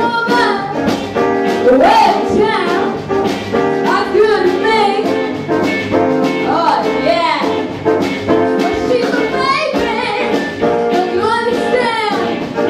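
A woman sings with a small jazz-style band of saxophone, upright bass, electric guitar and drums, playing live to a steady beat.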